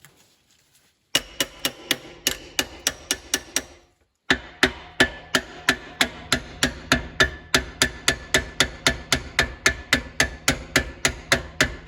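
Rapid, even hammer blows on metal, about four or five a second, with a brief pause about four seconds in: a stuck part of an old Lister CS engine being knocked loose during teardown.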